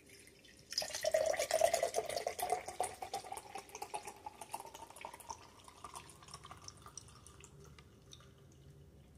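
Honeydew bubble tea pouring from a can into a tall drinking glass: the splashing starts about a second in, its pitch rising steadily as the glass fills, and it thins to a trickle near the end.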